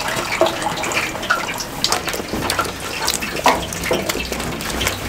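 Deep-frying oil sizzling, with many irregular small crackles and pops.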